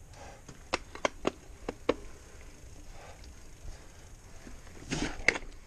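Mountain bike being pushed and handled over rocks, giving a few scattered sharp clicks and knocks, with a louder clatter about five seconds in.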